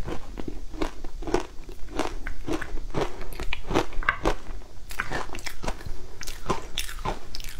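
Shaved ice dusted with matcha and milk powder being bitten and chewed close to a clip-on microphone: a steady run of sharp, icy crunches, two or three a second.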